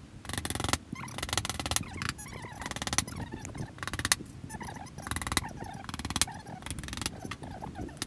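Hammer tapping finishing nails into wood: quick runs of sharp taps with short pauses between the nails.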